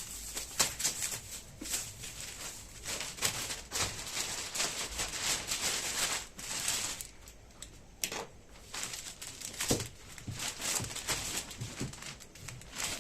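Packing material being handled and pulled off: irregular crinkling and rustling of wrapping, with occasional sharp clicks and knocks.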